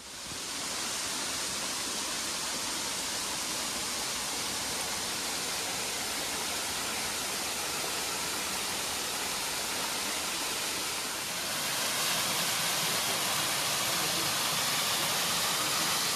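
Benton Falls, a waterfall cascading down stepped rock ledges, giving a steady rushing hiss that grows louder about eleven seconds in.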